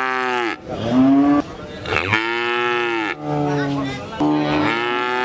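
Cows mooing: about five long, drawn-out calls one after another, alternating between higher-pitched and lower-pitched moos with short breaks between them.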